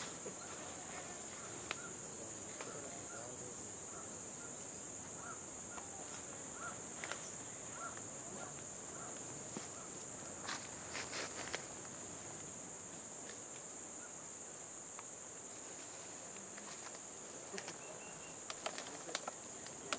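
Steady high-pitched drone of forest insects, with a faint chirp repeating about twice a second in the first half. Scattered sharp clicks and snaps come through it, a few together about halfway through and more near the end.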